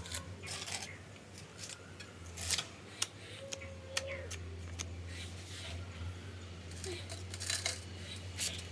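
Scattered light clicks and taps of hard objects being handled, over a steady low hum.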